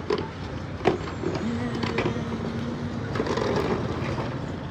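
Busy street noise with traffic running, a few sharp knocks (the loudest about a second in) and a steady low tone for about a second and a half in the middle.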